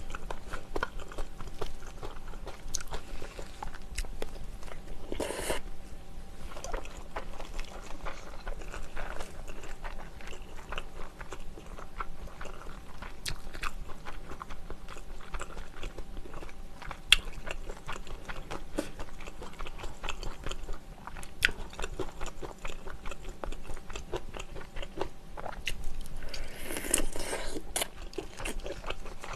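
Close-miked chewing and biting of soy-braised chicken, with many small wet mouth clicks and smacks. A couple of brief louder rushes come about five seconds in and near the end.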